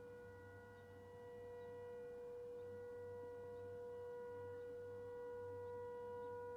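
Faint civil-defence air-raid sirens sounding one long, steady tone across the city for the national moment of mourning.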